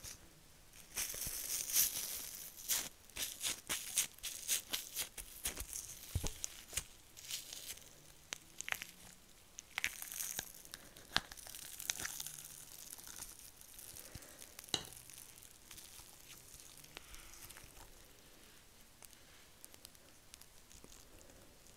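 Gold leaf flakes crinkling and rustling as long nails pick through them in a small plastic cup of clear slime, with many sharp clicks. The sound is busiest in the first half and grows sparser and quieter after about 14 seconds.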